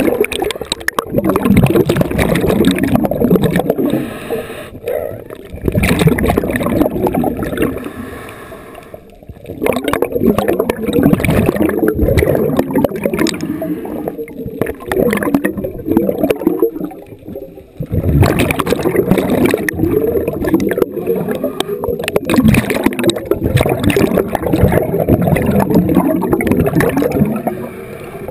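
Scuba regulator exhaust bubbles gurgling loudly underwater as a diver breathes out, in long stretches broken by a few short pauses between breaths.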